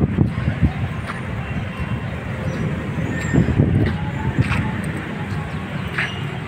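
Street traffic noise: a steady low rumble of passing vehicles, with a few short faint higher sounds over it.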